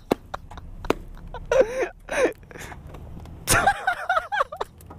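Motorcycle engines idling with a steady low hum. Twice over it, a man makes wordless vocal noises.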